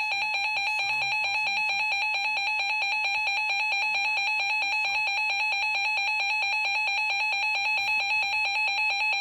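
Emergency Alert System attention signal: a loud, steady two-tone alarm held without a break, cutting off suddenly at the end, announcing an emergency alert, here a severe thunderstorm warning.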